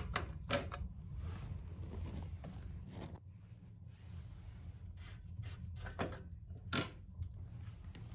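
Scattered knocks and clicks of metal parts and tools being handled during a motorcycle's disassembly, over a steady low hum; the strongest knock comes near the end.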